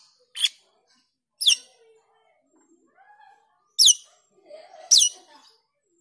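Asian glossy starling calling: four sharp, high calls that fall steeply in pitch, with soft, low chattering notes between them.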